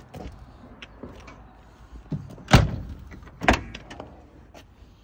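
Leyland P76 car door being handled: two heavy metallic clunks about a second apart, halfway through, with small clicks and rattles of the bare-metal door around them.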